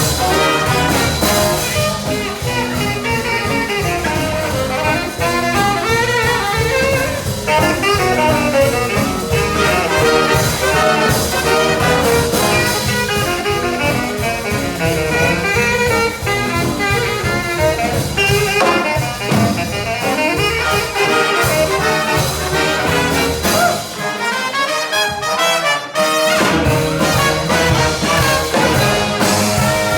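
A swing big band playing live, with trumpets, trombones and saxophones over bass and drums. Near the end the bass and drums drop away for about two seconds, then the full band comes back in.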